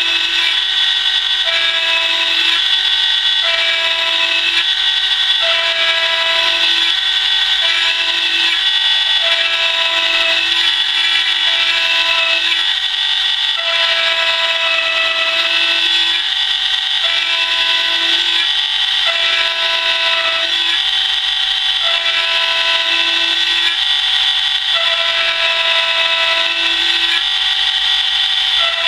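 Mortise key cutting machine running loudly, its cutter grinding into a key blank with a steady high whine, while a lower tone comes and goes about once a second as the cut changes.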